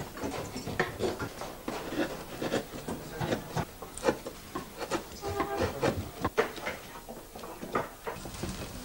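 Hand tools tapping and scraping on wood in irregular light strokes: the sound of wood-carving work. A brief pitched sound comes about five seconds in.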